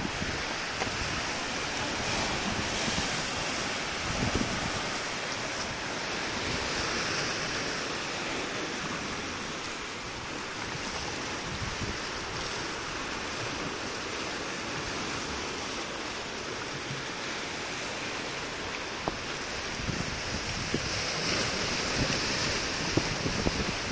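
Sea waves washing and surging among coastal rocks, a steady rush that swells and eases a few times, with some wind buffeting the microphone.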